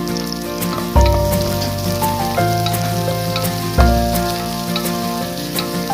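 Food sizzling and crackling as it fries in a hot pan. Behind it, background music holds steady chords that change about every three seconds.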